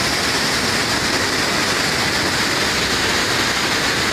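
Floodwater pouring through open dam gates, a loud, steady rush of churning water and spray.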